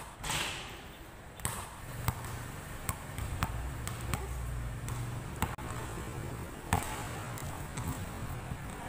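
Basketball bouncing on a painted concrete court: a string of sharp, irregularly spaced bounces over a low steady rumble.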